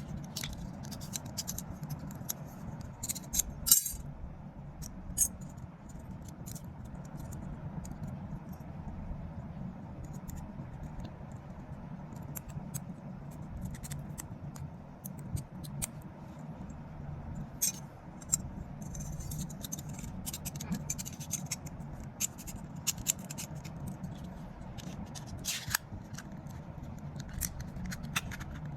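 Scattered small clicks and scrapes of a paper cutter (utility knife) being handled as its blade is changed, with one sharper click about four seconds in, over a steady low hum.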